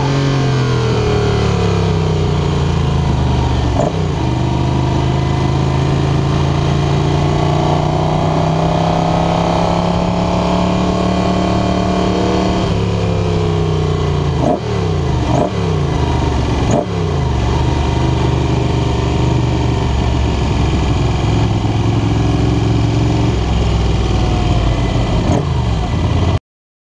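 Moto Guzzi Le Mans racer's transverse V-twin engine at racing speed, pulling through the gears: the pitch climbs slowly and drops sharply with gear changes, once about four seconds in and again about halfway, with several quick breaks a little later before it holds fairly steady. The sound cuts off suddenly near the end.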